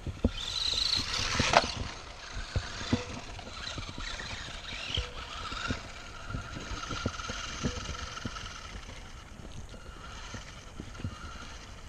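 ECX Torment 1/18-scale 4x4 RC short course truck's electric motor and drivetrain whining as it drives along a dirt trail, rising in pitch and loudest in the first second or two, then wavering with the throttle, with scattered short knocks and scuffs.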